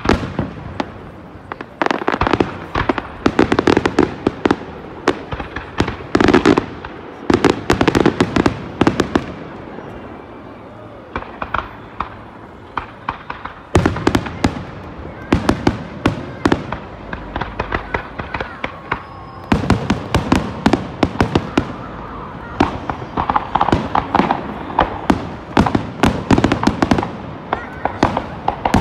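Aerial fireworks shells bursting in quick succession: many sharp bangs and crackles coming in dense clusters, with a brief lull about ten seconds in before the bursts pick up again.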